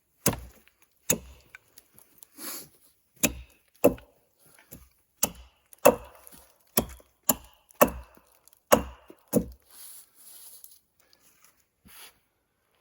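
About a dozen sharp, irregularly spaced blows of a hand tool on wood, stopping about three-quarters of the way through.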